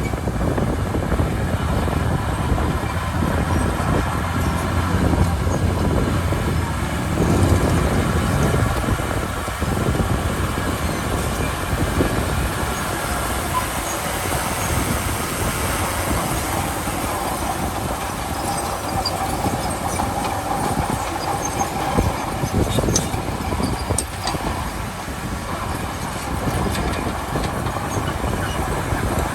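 Komatsu D31P crawler bulldozer working: its diesel engine running steadily with the steel tracks clanking, swelling louder for a moment about a quarter of the way in.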